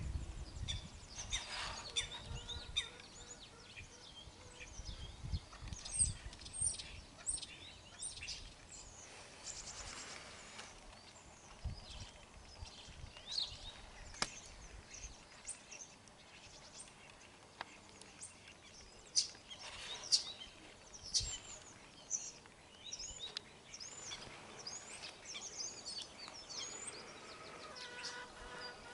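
Small birds chirping and singing outdoors, many short calls and trills scattered throughout over a faint background.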